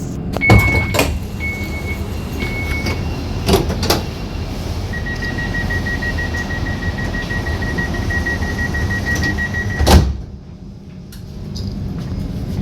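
Kaohsiung Light Rail tram door warning signal: three short high beeps, then one long steady tone lasting about five seconds. The tone ends in a loud thud as the doors shut. Low cabin rumble runs underneath.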